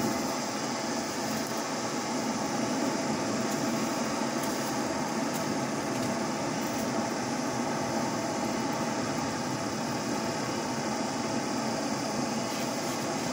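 Charcoal forge fire burning under a steady air blast, a continuous rushing noise with a few faint crackles, as a kored grass-cutting blade heats in the coals for hardening.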